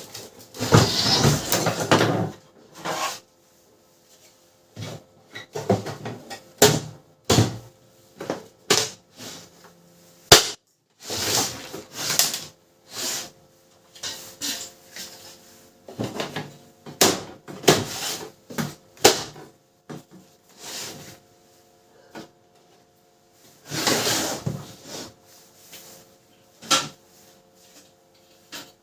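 Plastic casing and parts of a Canon LBP6030 laser printer being handled and fitted back together: an irregular string of clicks, knocks and snaps, with rubbing between them.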